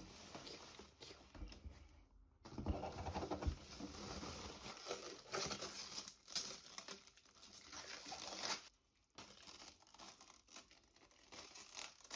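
Packaging being handled and unwrapped: crinkling and rustling of wrapping material, with a short break about two seconds in and a lull near the end.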